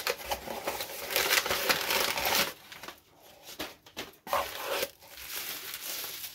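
Crumpled brown packing paper crinkling as it is pulled out of a small cardboard box, loudest for the first two and a half seconds, then lighter rustling with a few short knocks.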